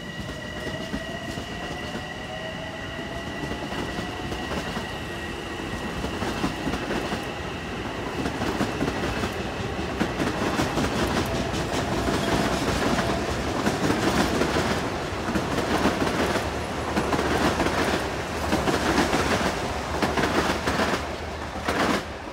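Long Island Rail Road electric multiple-unit commuter train passing, its wheels clattering over rail joints and switches, louder in the second half as the cars go by. A rising whine and a high steady whine are heard in the first few seconds; the sound drops off sharply as the last car clears, just before the end.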